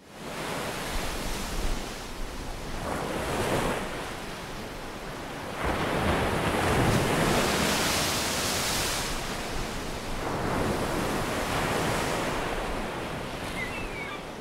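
Sea surf breaking and surging over rocks, with wind. It fades in from silence and swells and ebbs several times, loudest around the middle.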